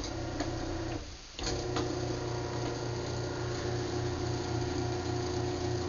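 Craftsman belt-drive garage door opener motor humming. It cuts out about a second in and starts up again, because the remote was pressed twice, then keeps running steadily with a low pulsing throb.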